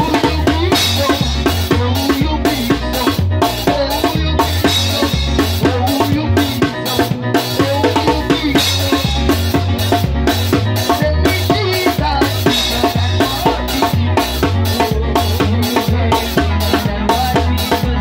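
Live band playing a steady groove, with a drum kit's snare and bass drum keeping an even beat under a bass line and a melodic part.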